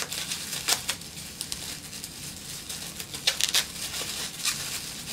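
Plastic bubble wrap being unwrapped by hand, crinkling and crackling irregularly.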